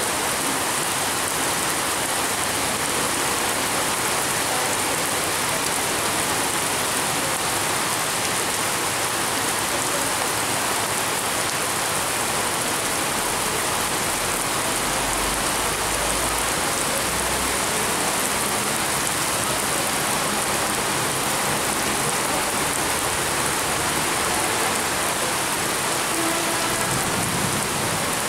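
Heavy rain pouring down onto a concrete platform, railway tracks and trees: a dense, steady hiss that does not let up.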